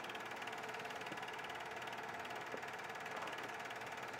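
8 mm film projector running: a steady, rapid mechanical clatter of the film transport, with no sound from the filmed scene.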